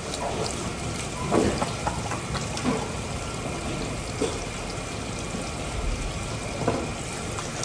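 Water running steadily, with a few short knocks.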